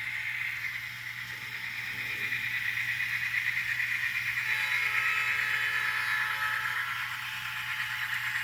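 Atlas SD60 N scale model diesel locomotive running with its sound decoder playing the prime mover sound, thin and tinny through the locomotive's tiny speaker. It gets a little louder about two seconds in, over a steady low hum.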